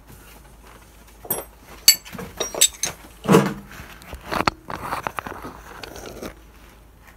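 Hand tools and metal engine parts clinking and scraping during a workshop teardown: a run of irregular knocks and clatter, the first few with a bright metallic ring.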